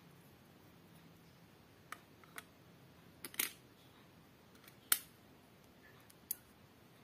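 Small plastic LEGO bricks clicking as they are snapped together and handled, about half a dozen sharp clicks spread over a few seconds, the loudest about five seconds in.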